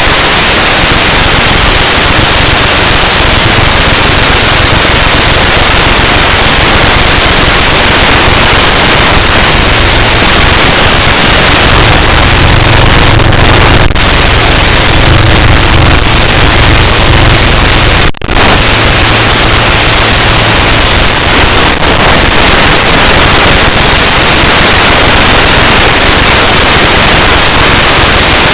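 Loud, steady rushing wind noise buffeting a small onboard camera's microphone on an electric RC model flying in high wind, briefly dropping out for an instant about two-thirds of the way through.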